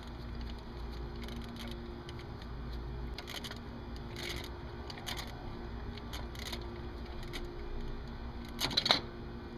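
Hand tools on a bolt: scattered metallic clicks and clinks from a wrench removing the 13 mm bolt of the serpentine belt tensioner, with a louder clatter of metal near the end. A steady low hum runs underneath.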